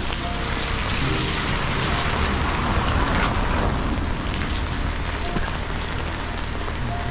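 Steady rain falling on a surface, an even hiss that swells slightly midway.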